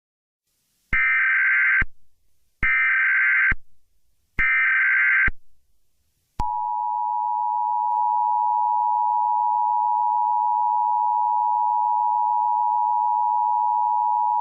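Emergency Alert System SAME header: three short electronic data bursts, about a second each and evenly spaced. About six seconds in, the steady two-tone EAS attention signal starts and holds for about eight seconds, marking the start of a new emergency alert.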